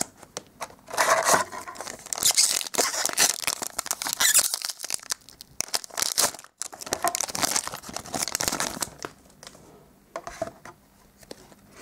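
Shiny foil wrapper of a trading-card booster pack being torn open and crinkled by hand, crackling on and off, then dying down near the end.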